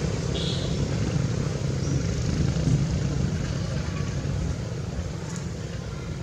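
Steady low rumble of a motor vehicle engine running nearby, with a brief high chirp about half a second in.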